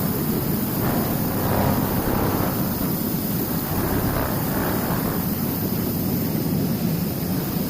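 Seafood bubble washing machine running: a steady low mechanical noise from its pump and blower, with no letup.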